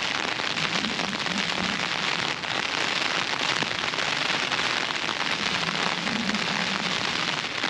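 Heavy rain hammering on the flysheet of a Big Sky Chinook 1P tent, heard from inside the tent: a dense, steady patter of drops.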